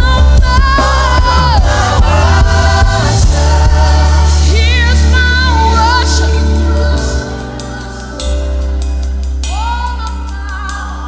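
Gospel worship music: sung vocals with vibrato over a choir and a steady bass, dropping back about seven seconds in before a voice comes in again.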